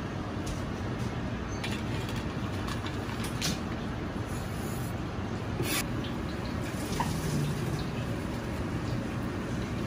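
Steady background rumble and hiss of a commercial kitchen, with a few sharp clicks as a Chinese cleaver scrapes sliced garlic off a plastic cutting board and taps against a metal dish. The cleaver then slices through char siu pork with little sound.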